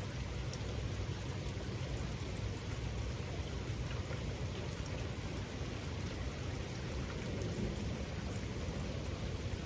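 Steady rain falling, with scattered faint drop ticks over a constant low rumble.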